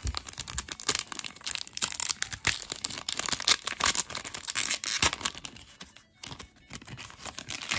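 Foil wrapper of a Pokémon card booster pack crinkling and tearing as it is ripped open by hand: a dense run of sharp crackles, loudest in the middle, thinning out near the end.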